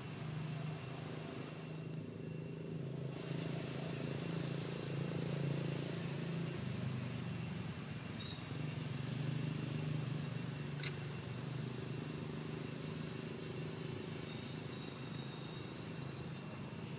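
Steady low rumble of engines, like road traffic at a distance, with a few short high-pitched chirps about halfway through and again near the end.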